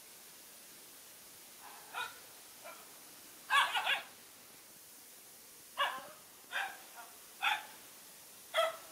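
Young dogs barking in short, separate yelping barks while they play-fight. There are about eight barks, including a quick run of three about three and a half seconds in.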